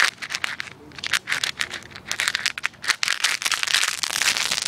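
Small ground-lit firework crackling with rapid snaps, thickening about three seconds in into a dense, steady crackling hiss as it throws sparks upward.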